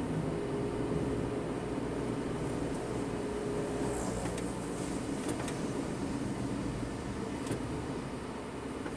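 Steady running noise of a vehicle heard from inside while driving along a road: engine and tyre noise at an even level, with a faint steady tone for the first few seconds and a few faint clicks.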